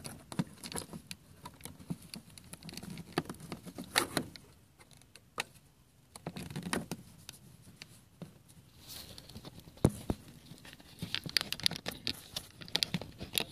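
Handling noise: scattered clicks and short rustles as a clamp meter is worked around a ground wire and moved about, with quicker clicks and rustles near the end.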